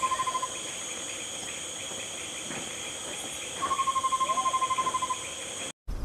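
Pygmy-owl calling: a fast trill of short notes, about a dozen a second, held near one pitch and falling slightly. One trill ends about half a second in and another runs for about a second and a half from just past the middle. Under it is a steady high-pitched insect drone.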